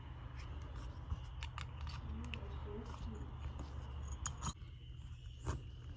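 Faint small metal clicks and scrapes as a wire snap ring is pried and worked out of the clutch slave cylinder bore in a 2009 Buell 1125CR's aluminium clutch cover, over a steady low hum.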